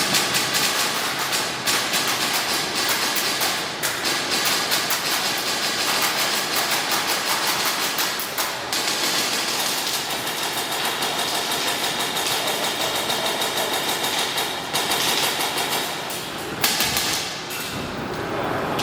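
Airsoft guns firing in rapid, near-continuous full-auto bursts, with a few short breaks.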